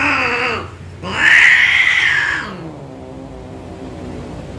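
Female Persian cat's mating cry: one yowl dies away just under a second in, then a second, louder and longer yowl starts about a second in. This is the scream a queen gives at penetration.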